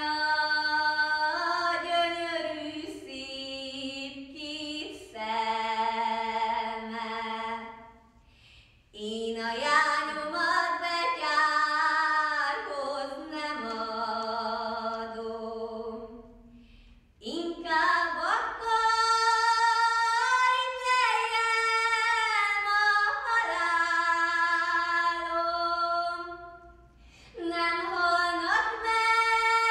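A teenage girl singing a Hungarian folk ballad solo and unaccompanied, in long held phrases with short gaps for breath between them about 8, 16 and 27 seconds in.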